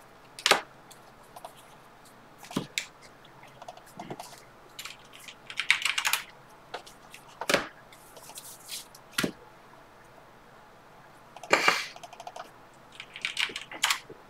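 A stack of Bowman Draft baseball cards being flipped through by hand: irregular sharp clicks and slaps of card stock, with a few short riffling bursts as several cards slide past at once.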